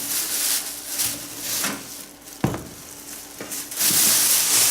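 Plastic wrap crinkling and rustling as it is handled and pulled off a PC case, in uneven strokes. It goes quieter about halfway through, with a single sharp knock, then the crinkling picks up again near the end.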